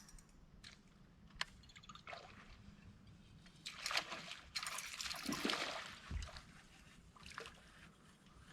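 Water splashing and trickling, with a few louder splashes about four to six seconds in.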